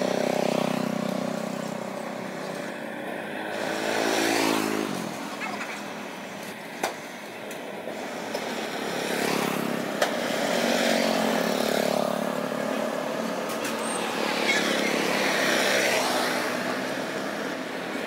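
Road traffic: vehicles passing one after another, each swelling and fading. One engine's note drops in pitch as it goes by about four to five seconds in. Two brief sharp clicks come near the middle.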